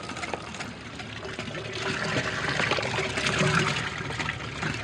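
Water splashing and gushing from a gas-powered water pump's discharge, growing louder about two seconds in, with a faint steady hum from the pump underneath.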